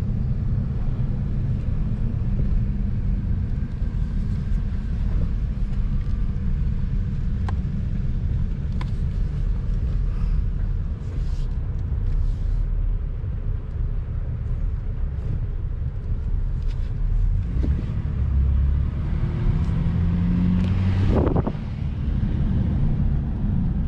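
A car driving, its engine and tyres making a steady low rumble, with a brief rising sound about twenty seconds in.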